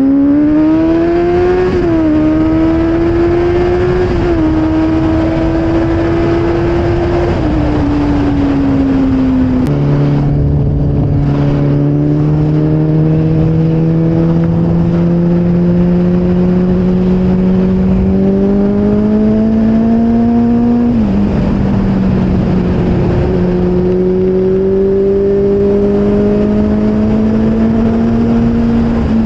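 Motorcycle engine under way, its note climbing as the bike accelerates and dropping abruptly at each upshift, a few times, over steady wind and road noise.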